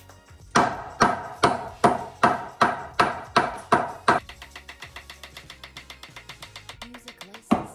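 A hammer striking repeatedly at a steady pace of about two and a half blows a second, each with a short ring. About four seconds in it changes to quicker, much lighter taps, and heavy blows start again near the end.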